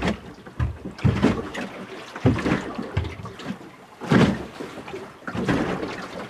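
Waves slapping and banging up under the bow tunnels of a small cathedral-hull boat pitching at anchor in a choppy sea: irregular heavy thuds about once a second over the wash of water, the loudest a little past four seconds in.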